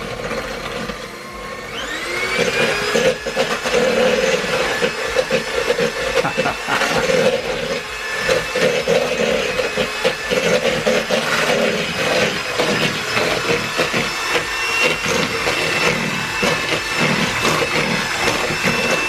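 Electric mixer beating butter for cookie dough. The motor whine rises as it speeds up about two seconds in, runs steadily, and winds down as it is switched off at the end, with frequent clattering throughout.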